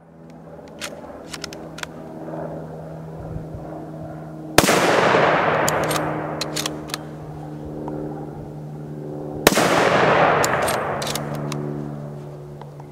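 Two shots from a scoped bolt-action rifle, a Remington 700, about five seconds apart. Each is followed by a long rolling echo that fades over several seconds. Light metallic clicks come between the shots as the bolt is worked.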